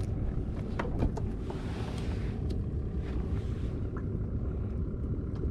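Wind buffeting the microphone on a small fishing boat at sea, over a steady low rumble, with a few light clicks and two brief soft hisses.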